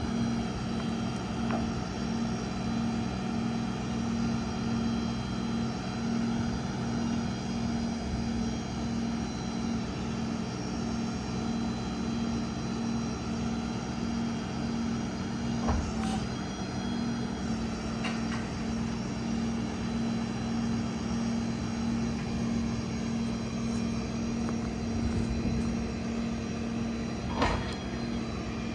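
Ford F-550's 6.7 Power Stroke diesel engine running steadily with a pulsing hum, with a few sharp clicks or knocks, the loudest near the end.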